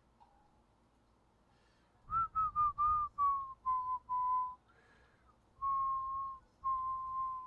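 A person whistling a tune close to the microphone, starting about two seconds in: a quick run of short notes stepping slightly down in pitch, then two longer held notes.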